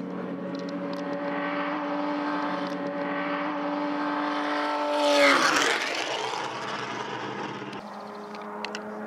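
Race car engine at speed growing louder as it approaches, then passing close by about five seconds in, its pitch dropping sharply as it goes past. A steadier engine note from another car follows near the end.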